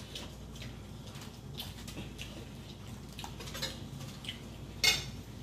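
Quiet eating: metal forks and spoons scraping and clicking against dishes and food, with scattered small clicks and one sharper clink near the end.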